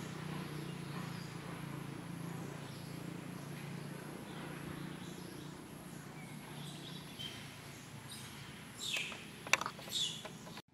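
Outdoor ambience: a steady low hum with faint bird chirps, then a few short sharp clicks and chirps near the end, one click louder than the rest.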